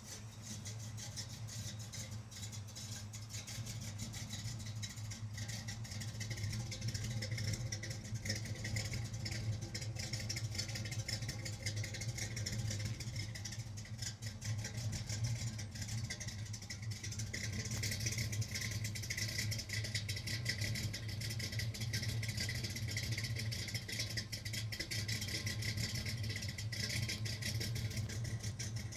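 Chevrolet 327 small-block V8 in a 1967 C10 pickup idling steadily through Hedman full-length headers and a Flowmaster exhaust. It gets somewhat louder past the midpoint.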